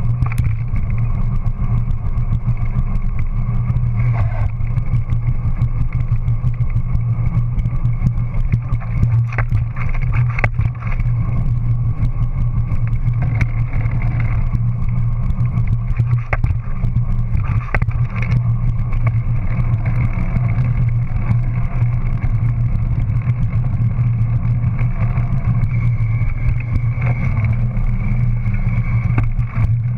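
Steady rolling rumble and low hum of a Scott dual-suspension bike riding fast along a concrete footpath, picked up by a camera mounted on the back of the bike, with frequent small clicks and knocks from bumps and joints in the path.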